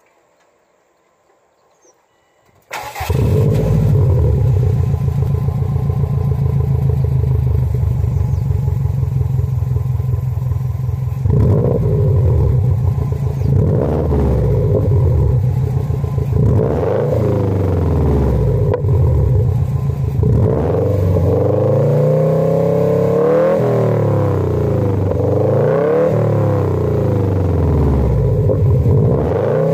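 Subaru Impreza WRX (GDA) turbocharged flat-four exhaust through a BLITZ NUR-SPEC R muffler, heard at the tailpipe. The engine starts up about three seconds in and idles steadily. From about eleven seconds on it is blipped repeatedly to just over 5000 rpm, each rev rising and falling, the blips coming closer together near the end.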